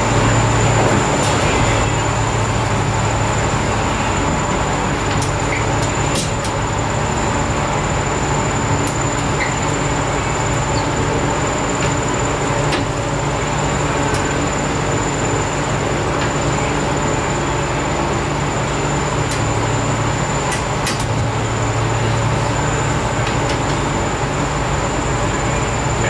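A steady mechanical drone with a low hum and a rushing hiss, with a few faint clicks.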